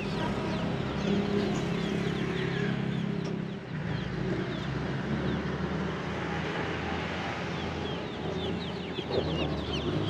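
A cage full of zebra finches and other small birds, many quick high chirps overlapping without pause, over a steady low hum.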